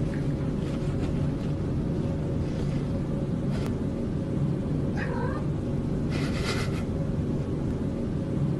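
Domestic cat with a snack bag over its head yowling low and continuously, with a higher call that falls in pitch about five seconds in. A brief rustle of the bag comes just after six seconds.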